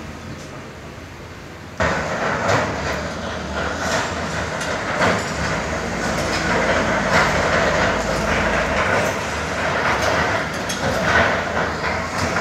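Hyundai excavator at work demolishing a concrete building: its engine running under a loud, dense clatter of knocking and crunching concrete rubble. A quieter rumble for about the first two seconds, then the noise suddenly becomes much louder.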